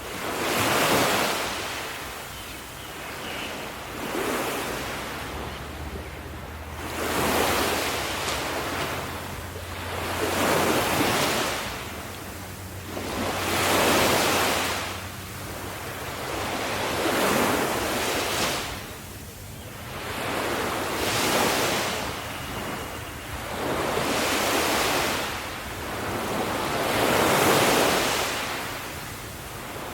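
Ocean surf breaking and washing up the shore in a steady rhythm, one wave swelling and fading about every three seconds.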